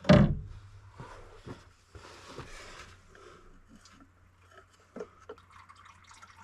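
A short loud sound right at the start, then faint scattered clicks and light taps of plastic parts being handled: the Jeep 3.6 oil filter housing cap and cartridge filter being worked out of the housing.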